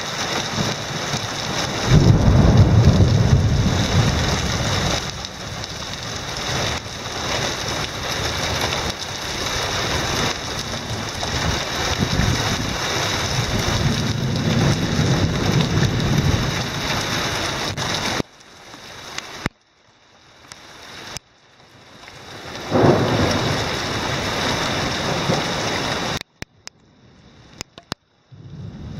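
Heavy rain pouring down steadily, with low rumbles of thunder about two seconds in, again around twelve to sixteen seconds, and a sharper one near twenty-three seconds. The sound drops out abruptly a few times in the later part.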